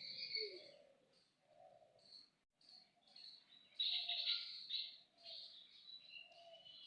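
Birds chirping and calling outdoors, short high chirps over a string of lower repeated calls, busiest about four seconds in.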